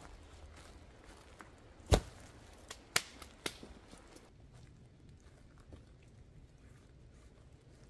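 A dead pine log or branch knocking and cracking as it is handled and falls to the forest floor. A heavy knock comes about two seconds in, followed by a quick series of sharper cracks about a second later.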